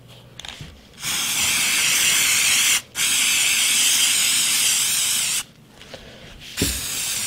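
Aerosol can of camouflage spray paint spraying in two long hisses, about two seconds and then about two and a half seconds, with a brief break between. Near the end there is a thump and a shorter, softer hiss.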